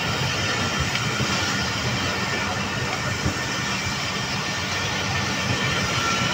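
Passenger coaches of a departing express train rolling slowly past on the track: a steady rumble of wheels on rail, with a couple of short knocks.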